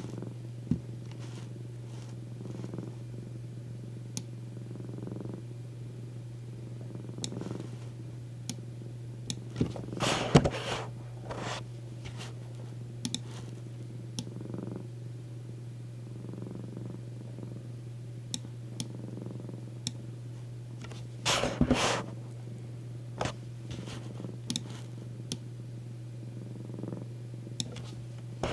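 Domestic cat purring steadily, close up. Short rustling scrapes break in about ten seconds in and again about twenty-one seconds in, with scattered small clicks between.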